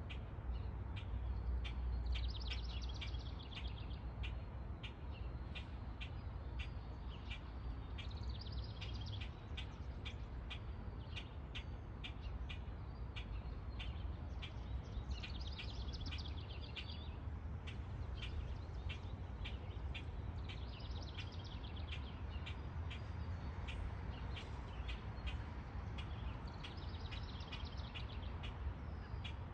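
A songbird singing, repeating a short trilled phrase of about a second and a half roughly every six seconds, over a steady run of high ticking calls and a low rumble.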